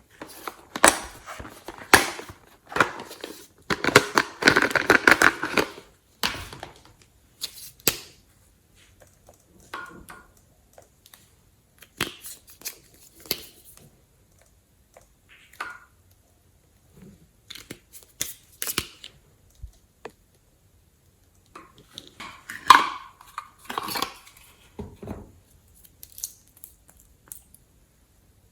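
Glossy slime being worked by hand: irregular sticky crackles and clicks, with a denser run of crackling about four to six seconds in.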